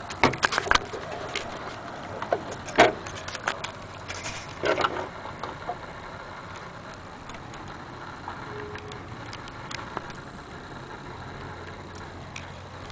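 Irregular clicks and knocks from handling the wooden case of a Vienna wall clock, loudest in the first five seconds, then fainter scattered light ticks, fitting the clock's movement.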